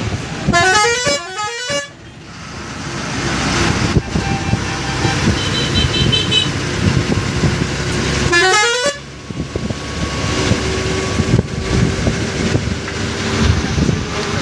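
A bus's musical air horn plays a quick rising run of notes twice, once about half a second in and again about eight seconds in, each cutting off abruptly. Under it runs the steady rumble of the bus's engine and the road, heard from inside the cab.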